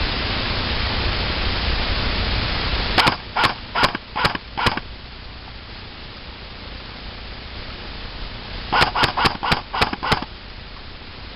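Airsoft gun firing single shots in quick succession, five in a string about three seconds in and six more near the end. A steady hiss sits under the opening seconds and fades out as the first string begins.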